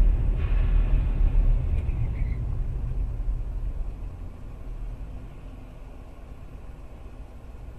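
Low road and engine rumble of a moving car, loud at first and dying down about four seconds in.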